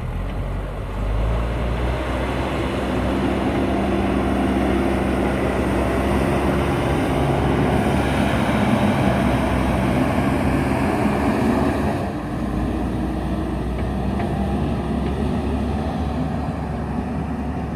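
Diesel engine of a JCB backhoe loader running steadily under work. It is louder for most of the stretch and drops back about two-thirds of the way through.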